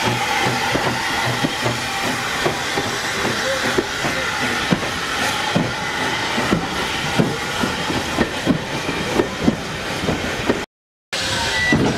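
A small steam tank locomotive and its passenger coaches rolling past, wheels clicking and knocking irregularly over the rail joints, with a steady hiss of steam. Near the end the sound cuts out for a moment, then a short high whistle note sounds.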